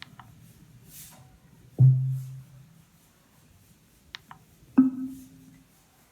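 Two loud percussive hits about three seconds apart, each followed by a short, low ringing tone, the second hit higher in pitch than the first, with a few faint clicks between them.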